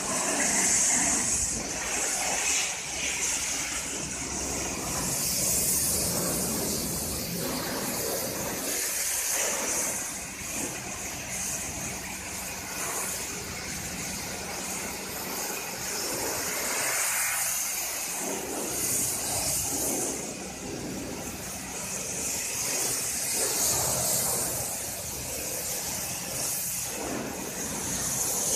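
Kärcher HD 6/15-4 Classic pressure washer's high-pressure water jet spraying onto a car's wheels and body panels: a steady hissing spray that swells and dips as the lance is moved over the car.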